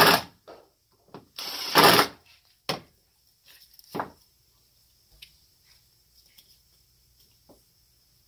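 Carburetor parts handled on a workbench: two short, loud scraping rubs in the first two seconds, then two sharp knocks and a scatter of faint light clicks as small parts are picked over.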